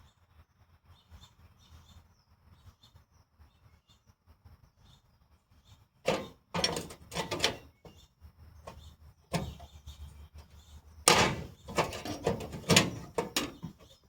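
Sheet metal scraping and rattling as a repair patch is handled and fitted for shape, in two clusters of irregular strokes starting about six seconds in. Faint high chirps of birds or insects come before them.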